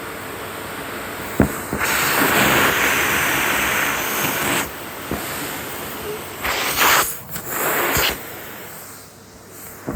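Henry vacuum cleaner running, its suction rushing much louder for two long stretches, with a sharp knock about a second and a half in.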